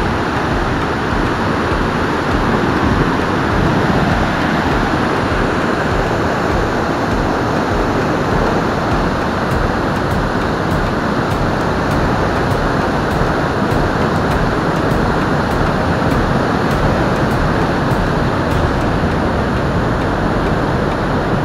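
Waterfall rushing steadily over rock ledges, heard from right beside the cascade.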